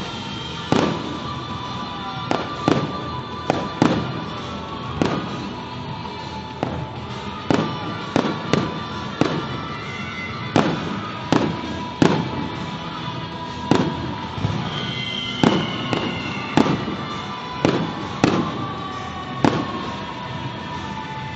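Aerial fireworks shells bursting one after another, a sharp bang roughly every second, over music.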